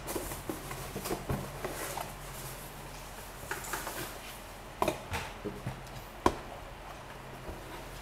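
A large cardboard keyboard box being opened and unpacked by hand: scattered rustles, taps and knocks, with one sharp knock about six seconds in, the loudest of them.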